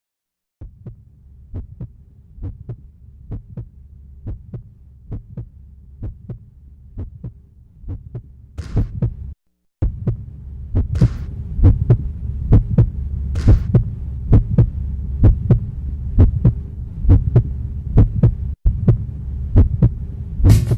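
Heartbeat-style sound effect: regular low thumps just under two a second over a steady low drone. It gets louder after a brief cut-out about halfway through, with three short hissing whooshes around the middle.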